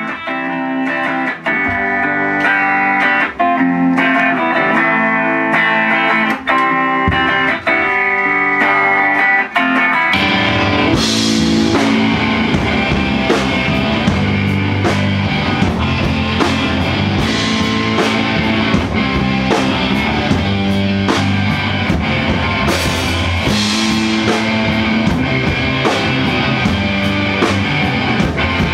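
Live rock band playing. A semi-hollow electric guitar picks the intro alone, then about ten seconds in the bass and drums come in and the full band plays on.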